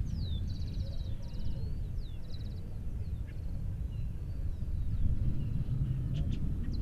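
Small birds singing, a phrase of a rising then falling whistle followed by short buzzy trills, repeated several times over a steady low rumble.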